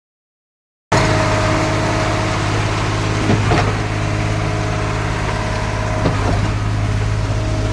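Concrete pump machine's engine running steadily, starting abruptly about a second in, with a few short knocks at about three and a half and six seconds in.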